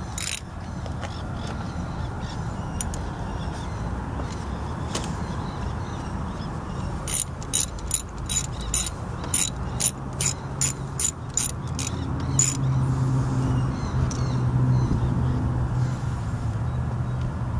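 Ratchet with an 8 mm socket clicking as the engine's air bleed screw is backed out: a few scattered clicks, then a steady run of about a dozen clicks, a little over two a second, in the middle. A low steady hum sets in near the end.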